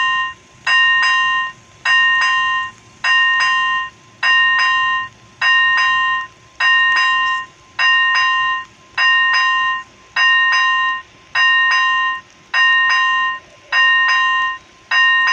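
Railway level crossing warning bell ringing, a rapid clanging in blocks of about a second with short gaps, repeating steadily about once every 1.2 seconds: the crossing's barriers are down for an approaching train.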